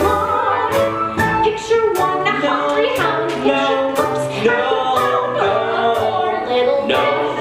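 Musical-theatre song: singing over instrumental accompaniment with a steady beat.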